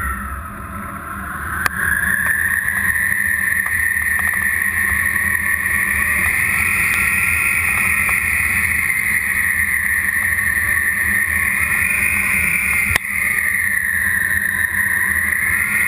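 Loud rush of wind on the camera microphone as a tandem paraglider flies tightly banked 360° turns, with a whistle that wavers up and down in pitch. The rush is softer for the first second or so, then stays loud.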